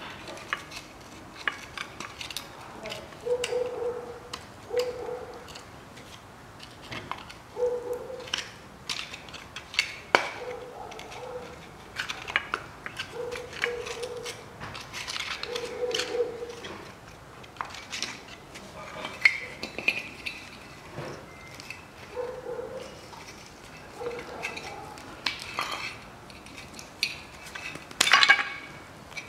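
Metal parts of a dismantled spare-wheel winch from a Land Rover Discovery 3 being handled: the housing and its steel cable clicking, knocking and clinking irregularly, with a dozen or so short squeaks in between.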